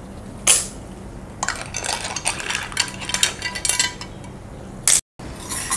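Clams in their shells being stirred in a nonstick pan of thick masala: a spatula scraping and shells clinking against each other and the pan, with a sharp knock about half a second in and another near the end.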